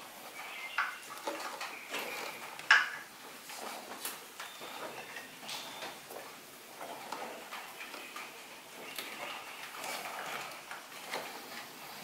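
Scattered small clicks, taps and rubbing of hands working hoses and parts in a car's engine bay, with one sharper click almost three seconds in.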